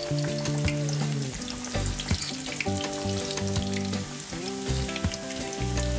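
Two minced-beef çibörek pastries deep-frying in hot oil in a pan: a dense, steady crackle and sizzle of oil bubbling around the raw dough. Soft background music with held notes plays underneath.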